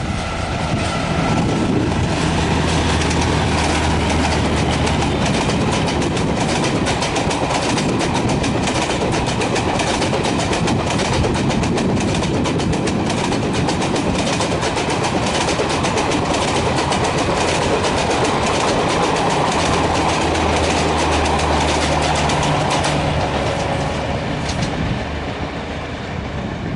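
Express passenger train of ICF coaches behind a WCAM2 electric locomotive rolling past close by at speed. The wheels clatter over the rail joints in a fast, continuous clickety-clack over a heavy rumble. Near the end the sound eases off as the train draws away.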